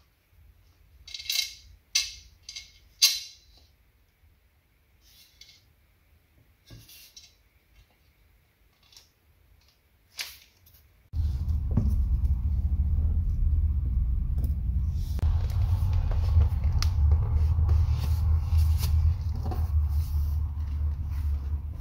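A few light metallic clicks of small screws being handled against a metal threshold strip. About eleven seconds in, a steady low rumble starts suddenly and continues.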